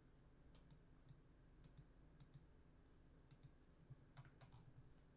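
Near silence with faint, irregular clicks of computer keys, about a dozen scattered through, over a low steady hum.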